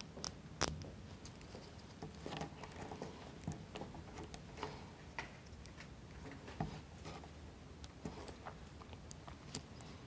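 Small wooden model-kit pieces clicking and scraping faintly as fingers fit them together, with irregular light clicks and one sharper click about half a second in.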